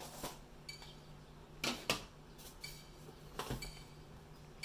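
Hard plastic graded-card cases (PSA slabs) clicking and clacking against each other as they are handled and set down: a handful of separate knocks, the loudest two close together about two seconds in.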